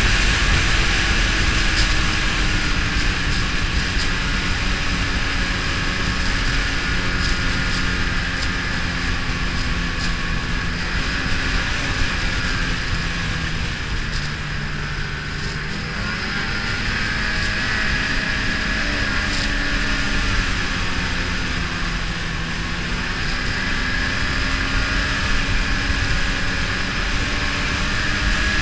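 Ski-Doo snowmobile engine running steadily while riding, its pitch sagging about halfway through and then climbing back as engine speed drops and picks up again.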